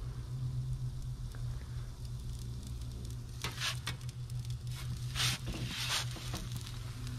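Ooni Koda 16 propane pizza oven running with a pizza cooking on its stone: a steady low hum and sizzling. A few brief, louder hisses come from about three and a half to six seconds in.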